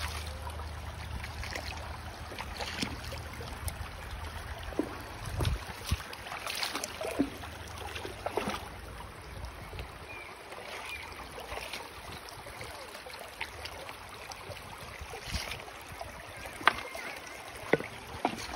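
Steady rush of flowing river water, with scattered sharp clicks and knocks of footsteps on loose river cobbles and a plastic bucket being carried. A low rumble underneath stops about five seconds in.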